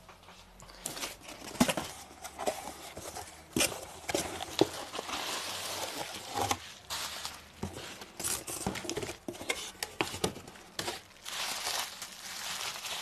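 Bubble wrap crinkling and rustling as a bubble-wrapped package is pulled out of a cardboard shipping box and handled, with scattered sharp clicks and knocks from the cardboard and plastic.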